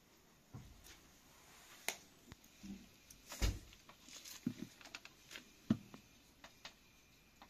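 Scattered light clicks and knocks of flat metal kebab skewers being handled and laid across the rim of a metal tray of charcoal, with one duller knock about halfway through.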